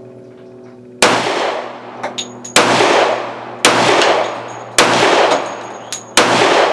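Sig P320 X-Ten 10mm pistol firing five shots of 230-grain hard-cast ammunition at an uneven pace, roughly one a second, each shot followed by a fading echo. Light metallic clinks come between the shots. The pistol cycles every round without a problem.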